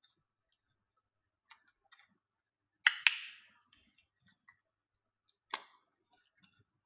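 Small plastic clicks and taps from a round plastic cable storage box being handled, with a sharp double snap about three seconds in and another sharp click near the end as its hinged lid is popped open.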